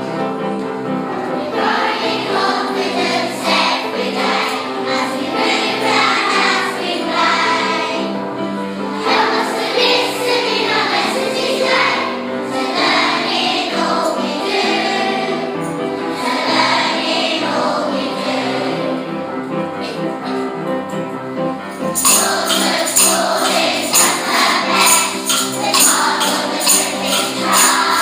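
Background music: singing voices over sustained chords, with a jingling percussion beat that comes in strongly about six seconds before the end.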